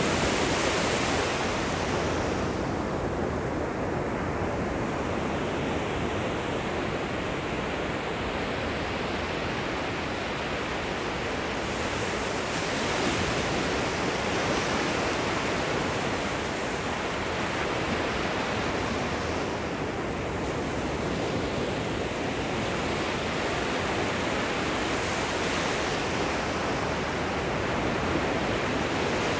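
Gentle ocean surf washing onto the shore, a steady rushing with a soft swell as each wave comes in, about every six to eight seconds.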